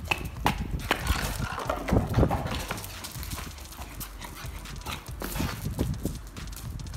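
A pug scampering about on concrete, its claws clicking and tapping, with short dog noises, the busiest about one to two seconds in.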